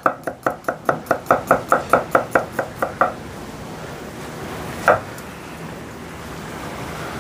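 Knife chopping garlic on a cutting board: quick, even strokes about six a second for three seconds, then stopping, with one more knock about five seconds in.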